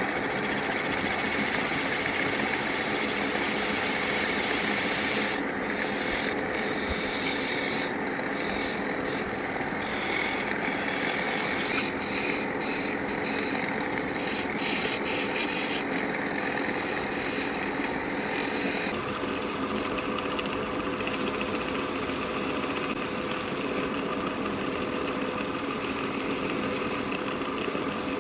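Wood lathe running steadily with a steady hum while a hand-held turning tool cuts the spinning wooden goblet blank, a continuous shaving hiss. The hiss drops out briefly again and again, and is less bright in the second half.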